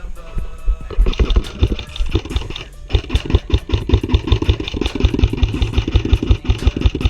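MK18-style airsoft electric rifle firing on full auto: a rapid, even mechanical clatter of about nine shots a second, stopping briefly near three seconds in and then resuming.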